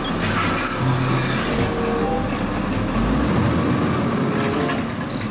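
Garbage truck sound effect: a truck's engine running in street noise, a steady rumble with hiss.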